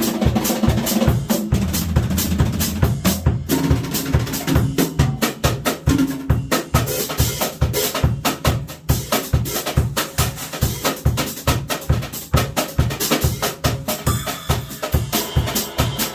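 Drum kit played with brushes: a busy, continuous groove of snare hits over a steady bass drum beat.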